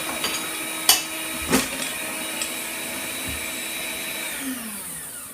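Electric mixer running steadily, beating cake batter, with a couple of sharp clacks about a second and a second and a half in. The motor winds down and stops near the end.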